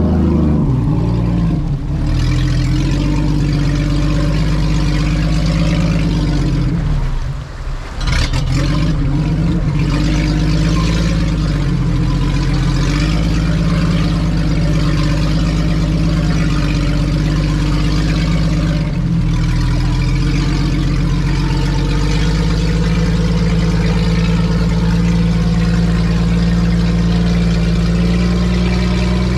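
Vehicle engine running steadily, its pitch stepping up and down with the throttle a few times, with a brief drop in level about seven to eight seconds in.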